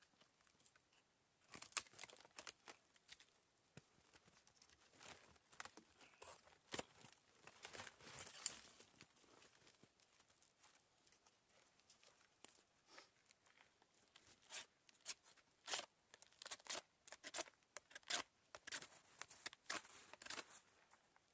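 Fatwood being pried and broken by hand off a weathered, decayed stump: irregular cracking, splintering and tearing of dry wood. It comes in two flurries, one about a second and a half in and a busier one from about fourteen seconds in.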